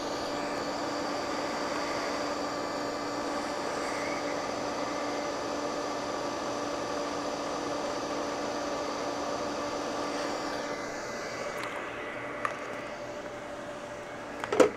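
Hot-air gun blowing steadily with a whirring fan, heating a chip's legs to reflow its solder onto a circuit board. The blower noise drops quieter about eleven seconds in. A sharp tick and then a louder clack of a tool being set down come near the end.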